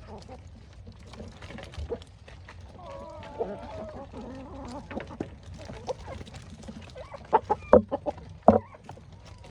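A flock of chickens clucking, with a cluster of short sharp knocks a few seconds from the end that are the loudest sounds.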